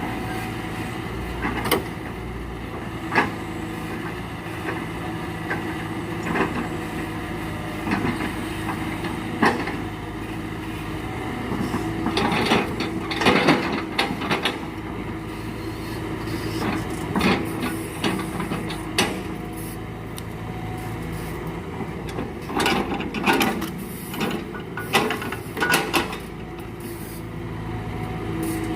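Excavator's diesel engine running steadily, with repeated sharp knocks and clunks, clustered about twelve seconds in and again near the end.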